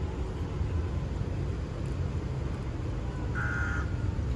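Steady low outdoor rumble, with one short, high, clear bird-like call about three and a half seconds in.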